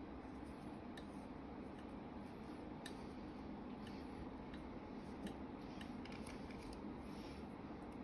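Faint, scattered small metallic clicks and light scraping as the parts of a gutted lock cylinder, its drilled plug and its housing, are handled and fitted together.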